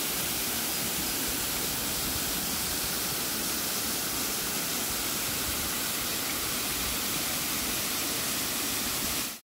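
Thin waterfalls pouring down a mossy rock face and splashing into a rocky pool: a steady, even rush of falling water that fades out quickly near the end.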